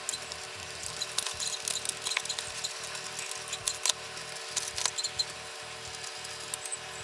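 Plastic parts of a large transforming robot toy clicking and knocking as it is handled and manipulated, with scattered sharp clicks over a steady hiss and faint hum.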